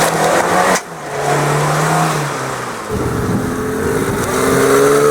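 Off-road 4x4's engine working under load in mud, holding a steady note, then climbing in pitch as it is revved from about three seconds in.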